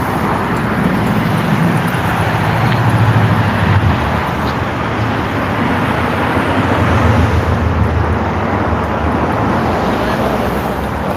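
Road traffic noise: a continuous wash of passing cars with a low engine rumble that swells twice as vehicles go by.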